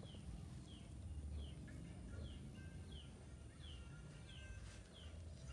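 A small bird repeating a short, high, falling chirp about every 0.7 seconds, eight or so times, over a faint low outdoor rumble.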